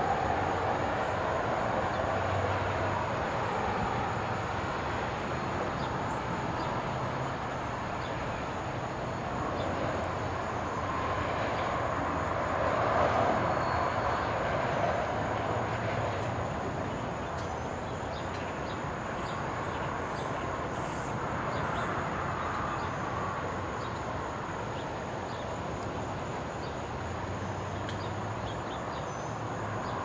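Freight cars rolling over the rails: a steady rumble with faint clicks and clatter from the wheels, swelling briefly near the middle and fading slightly as the end of the train draws away.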